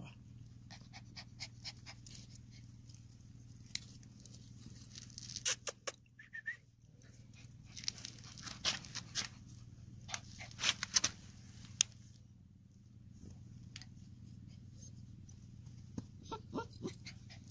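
A puppy on a leash moves about close to the microphone: scattered light clicks and rattles over a steady low hum, with one short high squeak about six seconds in.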